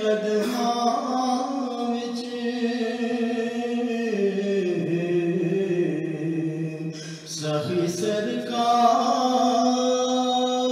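A man singing a Punjabi naat in long, drawn-out notes, the pitch sliding down in the middle of the phrase. A brief pause for breath comes about seven seconds in before the next held note.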